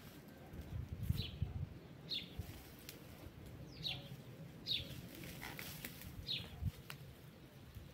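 A small bird repeating a short, high chirp that slides downward, about five times, a second or so apart. Soft rustling and scuffing from yard clean-up underneath.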